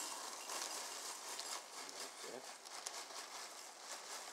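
Plastic inner bag of a box of Special K cereal rustling and crinkling as it is handled and tipped, with a light patter of cereal flakes.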